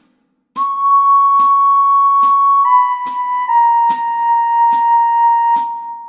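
Soprano recorder playing long held notes of a melody, stepping down from C sharp to B to A sharp, over a backing track with a steady ticking beat a little more than once a second. It starts after about half a second of silence.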